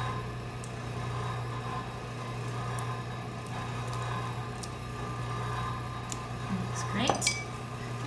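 Steady low hum of a small room, with a few faint clicks from hands handling a glass whiskey bottle and its cap. About seven seconds in come a short stretch of background voice and a few sharper clicks.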